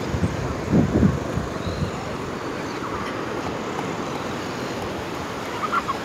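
Wind buffeting the phone's microphone over the steady rush of low surf on a sandy beach, with a few stronger low gusts about a second in.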